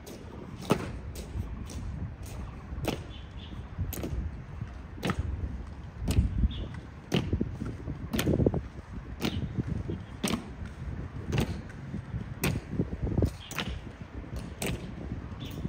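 Honour guards' hard-soled boots striking stone pavement in a slow, even march step, one sharp click about every second, over a low background rumble.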